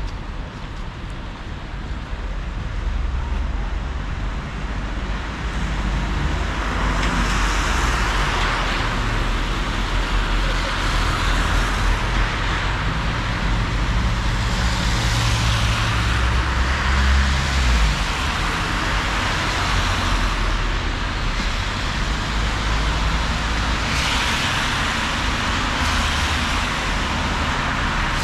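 City traffic on a rain-wet street: cars passing one after another, their tyre hiss swelling and fading every few seconds over a low engine rumble, which is heaviest about seventeen seconds in.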